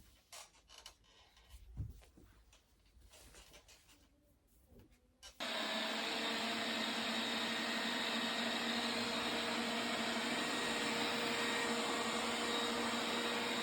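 A few light handling clicks and a soft thump, then an electric appliance motor switched on about five seconds in, running steadily with a loud whoosh and a constant hum.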